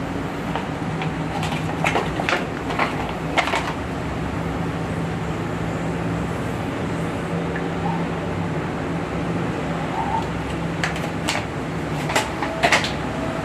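Sharp plastic clicks and knocks in two clusters, a handful in the first few seconds and a few more near the end, from detergent bottles and the washing machine's compartments being handled, over a steady low hum.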